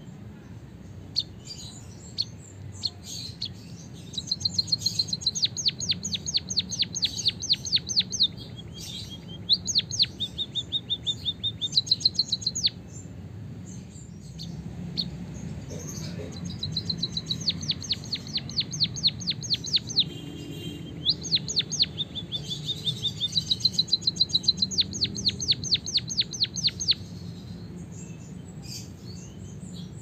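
White-headed munia singing learned canary-style song: long, fast rolling trills of high notes, in two long runs with a pause of a few seconds in the middle.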